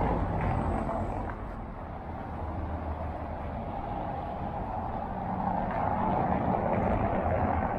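City street traffic noise, a steady hum of vehicle engines and tyres that dips about two seconds in and swells again in the second half.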